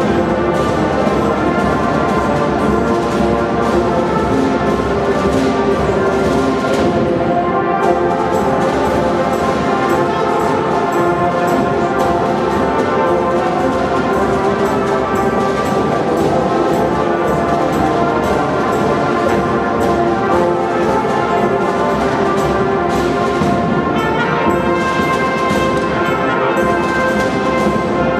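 Youth marching band playing a tune on brass horns over snare and bass drums, the horns holding sustained chords.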